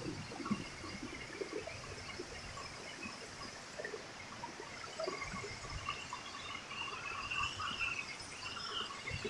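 Faint high chirping calls of small animals, repeating and growing busier in the second half, over a soft steady hiss of flowing water.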